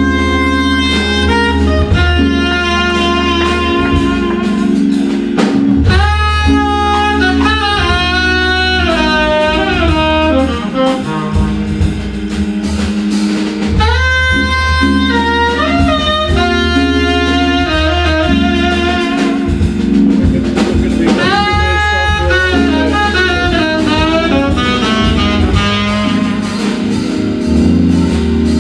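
Live jazz trio: tenor saxophone playing a slow melody, with two flurries of fast rising and falling runs, over held organ chords and deep organ bass notes, with drum kit accompaniment.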